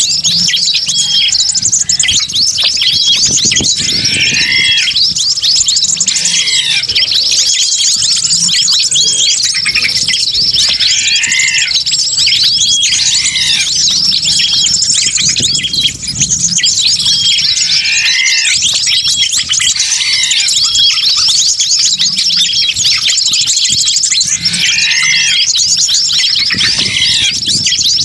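Bird-lure recording of a dense chorus of many small birds chirping and twittering over one another, with a repeating arched call that comes back every two seconds or so.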